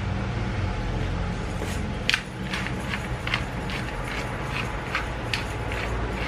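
Black pepper being shaken from a small shaker over a pan of cream sauce: a run of sharp clicks, about two a second, starting a couple of seconds in, over a steady low hum.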